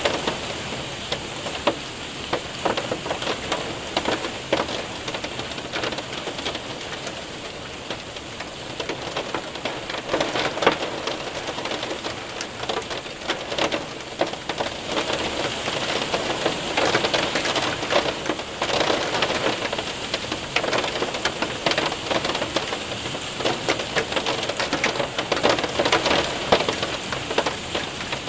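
Rain and hail pelting a window and roof: a dense, steady patter of countless small hits, with spells of sharper, heavier clatter.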